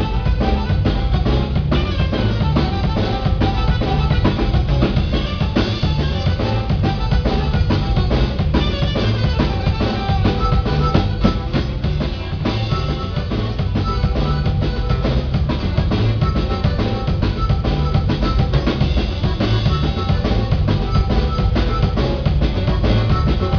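A live band playing a song at a sound check. A drum kit with kick, snare and rim shots is prominent over a pulsing bass line and some held melodic notes, at a steady loud level.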